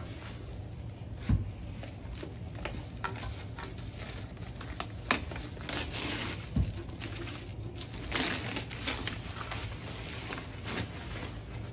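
Thin plastic bag rustling and crinkling as it is pulled off a boxed network storage unit, with two dull thumps, about a second in and just past halfway.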